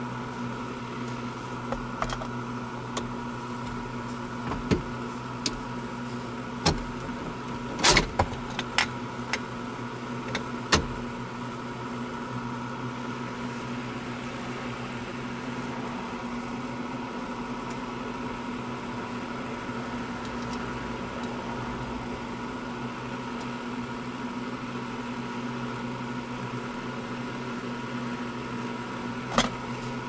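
Sharp metal clicks and knocks from tools and steering-column parts being handled during an ignition-switch repair on a Ford F-250: a cluster over the first ten seconds or so and one more near the end. A steady hum sits underneath.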